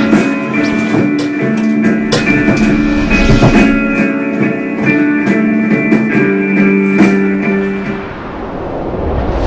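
Music led by a guitar: held notes and sharp plucked strikes. The notes stop about eight seconds in and a rising noisy wash takes over.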